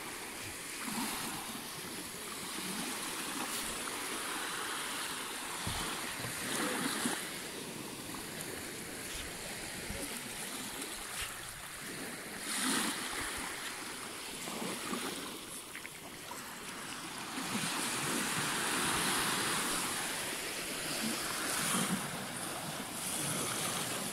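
Small surf washing up and drawing back over sand at the water's edge, swelling and easing every few seconds.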